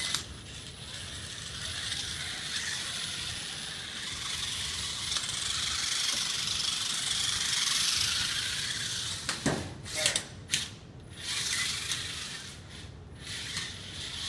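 Beetleweight combat robot's small brushless drive motors whirring as it is driven around on a hard tile floor. About nine and a half seconds in the pitch falls, then the whir cuts in and out several times as the robot stops and starts.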